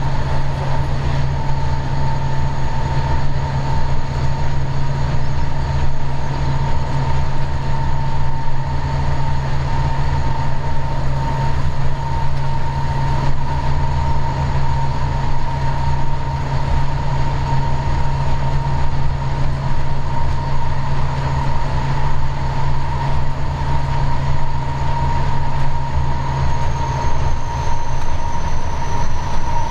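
Diesel locomotive running at speed, heard from its cab: a steady low engine drone with a steady high whine above it, over the rumble of the wheels on the track.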